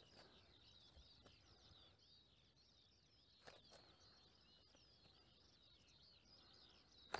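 Near silence with faint, continuous birdsong: a dense stream of high chirps and trills, and a couple of faint clicks.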